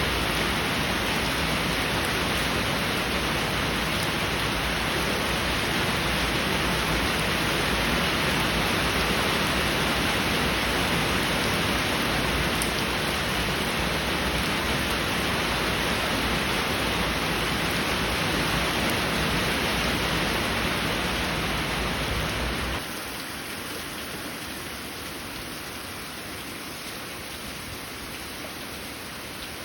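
Heavy rain falling as a steady hiss. About 23 seconds in it cuts suddenly to quieter, thinner rain.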